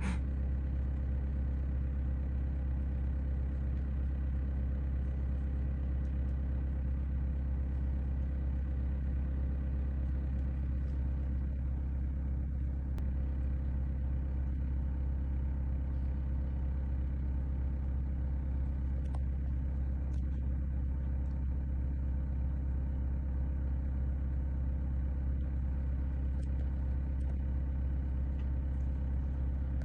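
Car engine running steadily at low speed or idle: an even, unchanging low hum.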